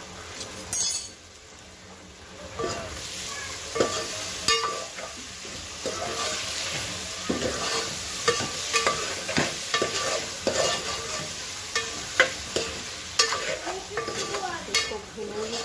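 A metal spoon stirring and scraping vegetables in an aluminium pot, with repeated light knocks against the pot over a sizzle as the vegetables fry in masala and ginger-garlic paste. The stirring starts about two and a half seconds in.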